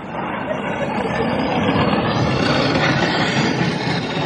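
A dog sled team running past on packed snow and pulling in. The sled runners scrape and hiss over the snow, with the dogs' feet on the snow making a steady, dense noise.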